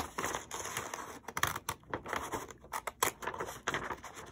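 Scissors cutting through a sheet of white paper: a run of uneven snips with the paper rustling as it is turned.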